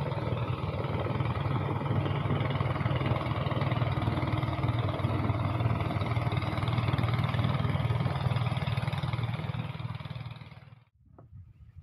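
A small engine running steadily with a low hum, fading out near the end.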